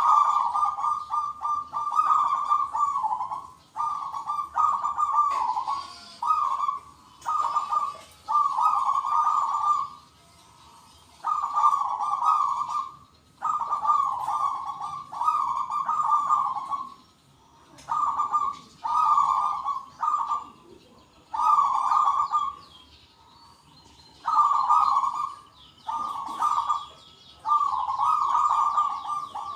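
Zebra doves (perkutut) cooing, several birds answering one another in repeated phrases of rapid coos, each a second or two long with short gaps between. Fainter high chirping sits above them now and then, most plainly near the end.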